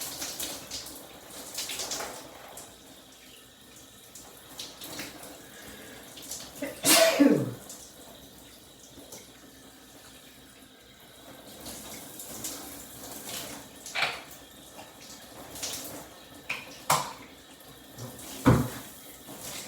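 Shower spray running steadily, with one loud nasal outburst from the person about seven seconds in, a voiced sound that falls in pitch, followed later by a few short sharp sounds.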